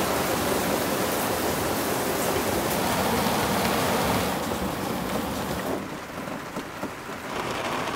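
Steady rain falling on a sailboat's deck and hatches, heard from inside the cabin; it grows softer about six seconds in.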